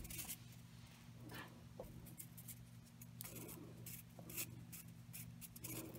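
Faint rustling and scratching of a thin paper strip being wound around a plastic cotton swab by hand, in short irregular bursts, over a steady low hum.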